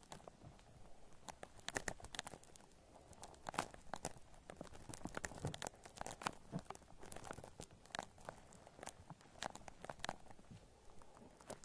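Shaving cream foam worked close up against binaural microphones, crackling and popping in quick, irregular clicks.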